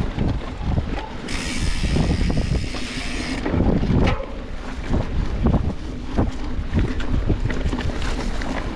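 Mountain bike ridden along a dirt trail: wind rumbling on the bike-mounted microphone, with many short knocks and rattles as the bike goes over bumps. About a second in, a high whirring buzz lasts about two seconds.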